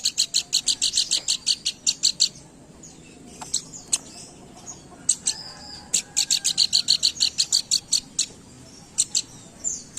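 Pelanduk bukit (a babbler) singing: two fast runs of sharp, high repeated notes, about six a second, one at the start lasting about two seconds and another from about six seconds in, with a few single notes between.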